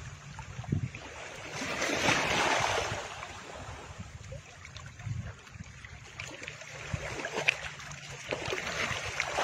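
Swooshing sound effects for an animated logo reveal: a swelling whoosh of noise about two seconds in and another near the end, with a few short hits and sparkly ticks between.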